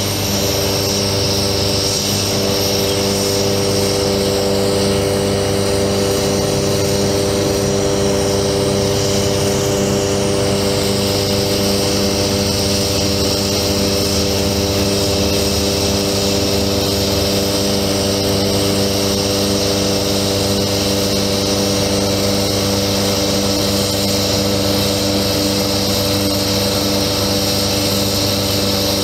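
Truck engine and hydraulic pump running steadily while a Palfinger PK32080 articulating crane is worked and its boom unfolds. A constant, even machine hum made of several steady tones, with no break.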